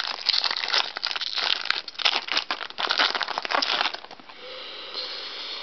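Foil wrapper of a Bowman Chrome baseball card pack crinkling as it is handled and torn open. Dense crinkling for about four seconds, then it eases off.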